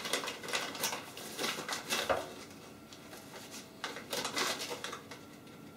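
Rustling and crinkling of a packet of dry yeast being handled at the bread maker's pan, with a few light knocks, in two spells about four seconds apart.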